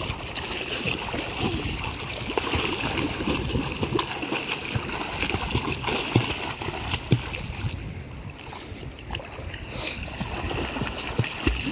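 Irregular splashing of a child kicking and paddling in shallow sea water.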